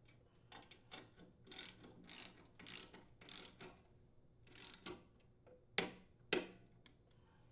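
Click-type torque wrench ratcheting in short strokes on the mower's blade bolts, then two sharp clicks about six seconds in as it reaches its 40 foot-pound setting.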